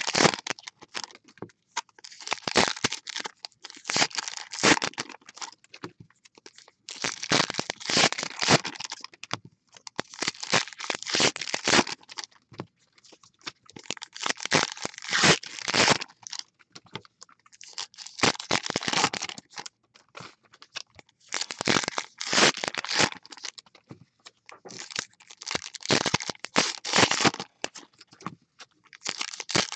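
Plastic foil wrappers of baseball card packs being torn open and crinkled by hand, in bursts lasting a second or two with short pauses between them.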